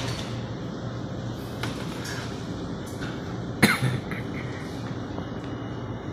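Restaurant dining-room background noise: a steady low hum with a few faint clicks, and one short, loud, sharp sound about three and a half seconds in.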